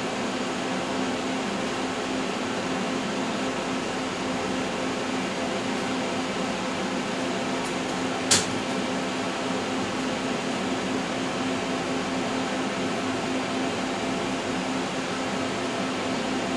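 Fadal CNC machining center powered up and idling after a restart: a steady fan-like whir with a low hum. A single sharp click sounds about halfway through.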